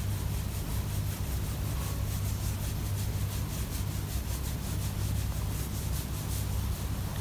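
Fingers scratching a domestic cat's chin fur close to the microphone, a quick, even rustling, over a steady low rumble of the cat purring.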